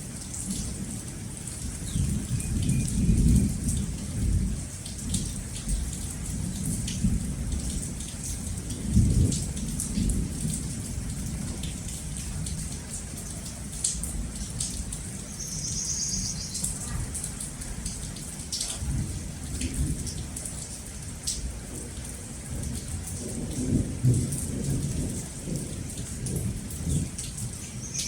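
Steady rain falling, with low rolls of thunder, the strongest about three and nine seconds in.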